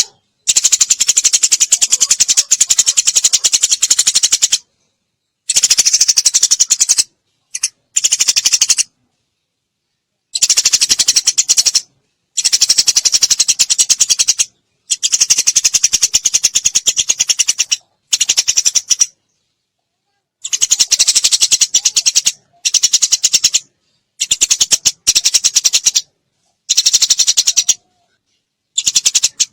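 Eurasian tree sparrow song in the rapid 'tembakan' style: about a dozen bursts of fast, machine-gun-like chattering, each lasting one to four seconds. The bursts are high-pitched and separated by sudden silent gaps.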